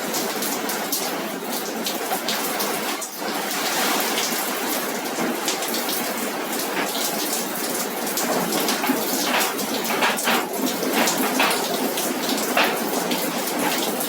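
Heavy rain in a windy rainstorm: a dense, steady downpour of many small drops striking surfaces.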